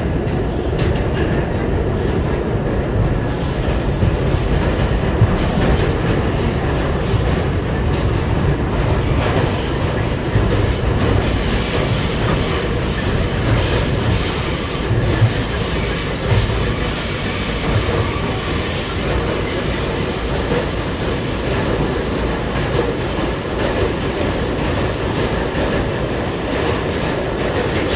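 Interior noise of an R211A subway car running through the tunnel: a loud, steady rumble of steel wheels on the rails, with occasional clacks and some wheel squeal.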